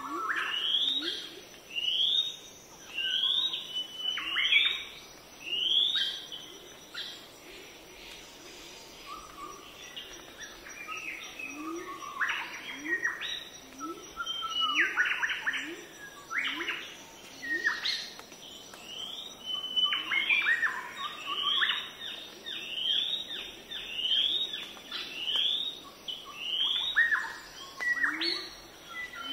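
Birds chirping: bouts of short rising chirps, about one or two a second, with a quieter gap and then a run of more varied calls midway before the chirping series starts again.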